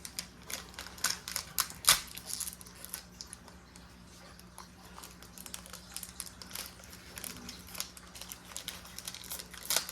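Foil Pokémon booster pack wrapper crinkling and being torn open, with cards clicking and sliding as they are handled. There are sharp crackles, the loudest about two seconds in and another near the end.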